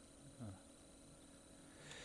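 Near silence: room tone, with one faint short sound about half a second in.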